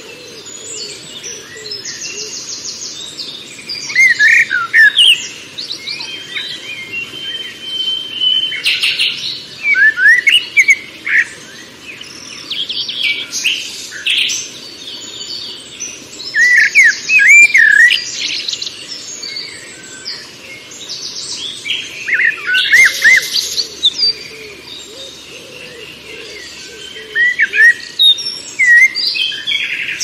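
Several wild songbirds singing and calling in overlapping bursts every couple of seconds: chirps, whistled slurs and fast high trills.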